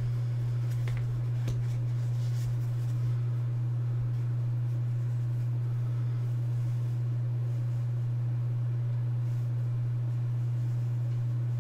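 A steady low hum, with a few faint soft handling knocks in the first couple of seconds as foam is lifted inside an aluminium card case.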